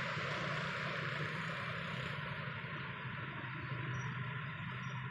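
Steady rushing noise of the flooded Chenab River, with a low hum underneath; the highest part of the hiss fades about two seconds in.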